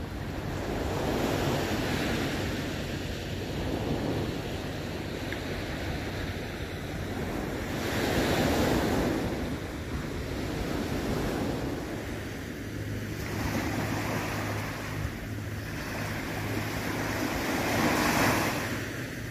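Small sea waves breaking and washing up on a sandy shore, the surf swelling and fading every few seconds, with wind buffeting the microphone.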